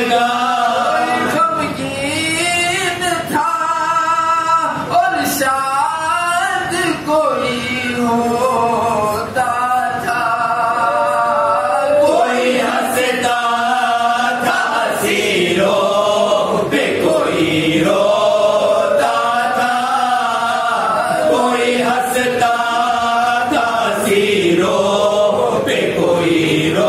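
A group of men chanting a marsiya, an elegy for Imam Husain, in unison, unaccompanied, with long held melodic lines broken by short breaths between phrases.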